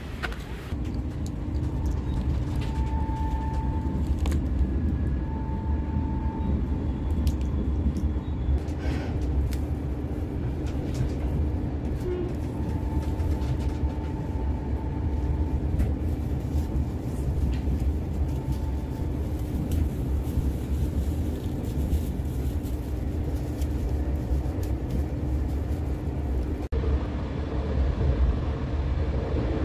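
Passenger train running, heard from inside the carriage: a steady low rumble with a steady hum, a few faint intermittent whines and scattered clicks.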